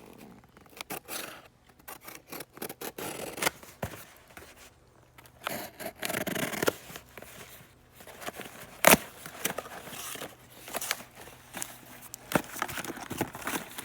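A cardboard package being opened by hand: irregular cutting, scraping and tearing of tape and packaging, with sharp clicks and knocks from handling, one louder knock about nine seconds in.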